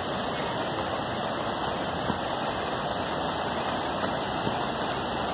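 Shallow river running fast over rocks: a steady rush of white water.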